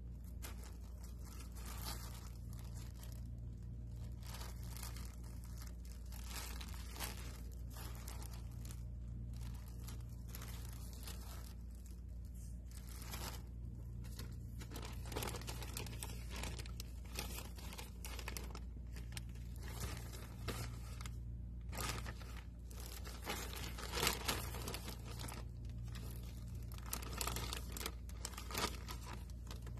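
Thin clear plastic packaging around a pack of shower caps crinkling and rustling as it is handled by hand, with a few louder crackles in the second half.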